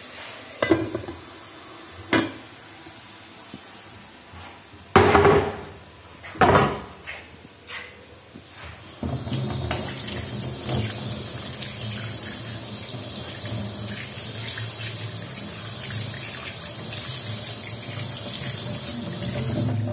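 A pan lid set down on a pan and a few loud knocks of kitchenware handling, then, about nine seconds in, a kitchen tap running into a stainless steel sink, the water splashing over a hand being rinsed. The running water is steady and stops at the end.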